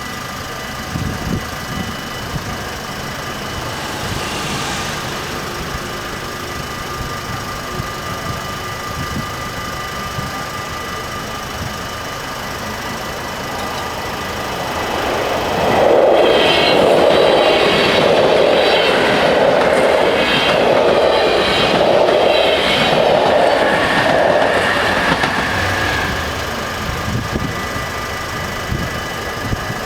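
A train passing over a level crossing: it comes up about halfway through, clatters over the crossing with a rhythmic clickety-clack of wheels on the rail joints for about ten seconds, then fades. Throughout, the crossing's warning bells keep ringing steadily.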